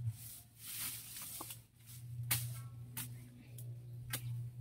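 Long-handled blade hacking through tall grass and weeds: a few sharp chops a second or more apart, over a steady low hum.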